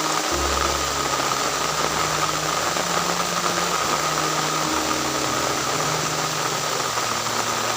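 Steady, even hiss with a constant faint tone in it, under soft background music of long held low notes that change pitch every second or two.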